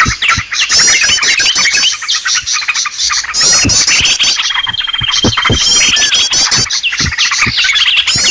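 Bird-lure recording of sooty-headed bulbul (trucukan) calls mixed with a dense chorus of small birds' chirps and trills, with many sharp clicks. A held whistle comes about four seconds in, and the same phrases repeat about every five and a half seconds, as in a loop.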